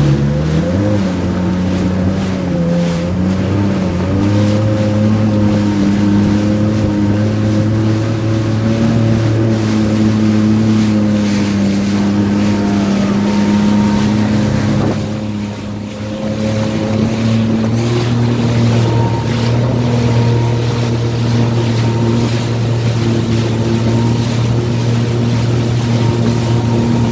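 Jet ski engine running steadily at speed, its pitch climbing just after the start, with wind rushing over the microphone. About halfway through the engine briefly eases off, then picks up again a couple of seconds later.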